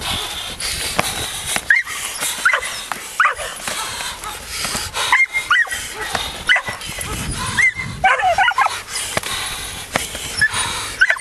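Young Belgian Malinois barking and yipping in short, high-pitched bursts, about a dozen at irregular intervals, as it is worked up at a helper's bite pillow in protection training.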